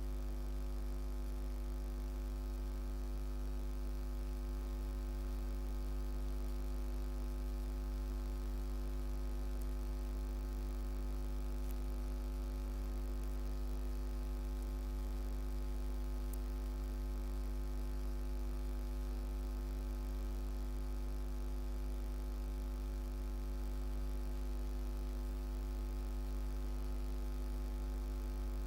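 Steady low electrical hum, mains-type, with a stack of higher overtones and no change in pitch or level.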